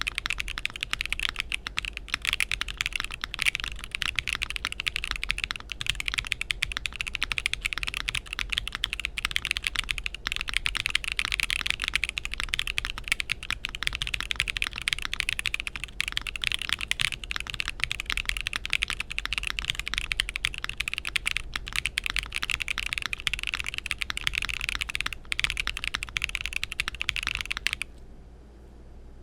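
Continuous fast typing on a mechanical keyboard fitted with Akko V3 Cream Blue Pro tactile switches in an Akko Zeke M3 TKL with a polycarbonate plate, a clacky sound. The typing stops abruptly near the end.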